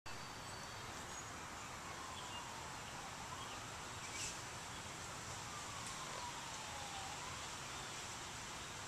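Steady outdoor hiss with a faint siren wailing, its pitch sliding slowly down and then back up, twice. There is a brief tick about four seconds in.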